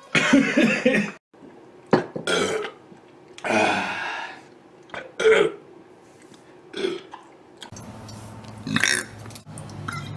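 A man burping repeatedly after chugging beer: about six separate burps with pauses between them, the first and third long and drawn out, the later ones short.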